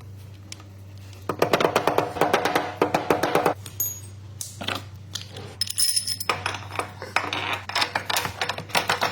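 Background music with quick percussive hits, over a steady low hum.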